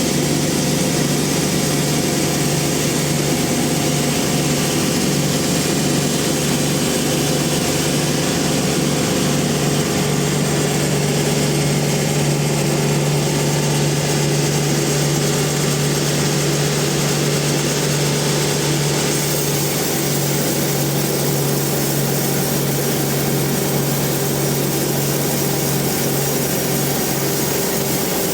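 Large band sawmill running steadily: a constant machine drone with a low hum and a steady higher tone, unchanging throughout.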